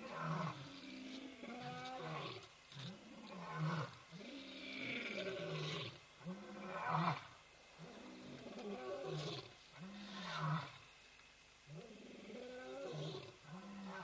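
Lion roaring: a long series of deep, pitched roaring grunts, about one a second, with a short pause near the end.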